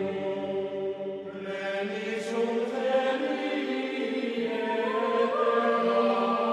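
Background choral music: voices chanting in long held notes that change pitch slowly, with higher voices joining about a second and a half in.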